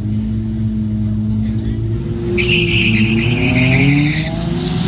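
A car engine running and then revving up, its pitch rising through the second half. A high-pitched squeal lasts nearly two seconds in the middle.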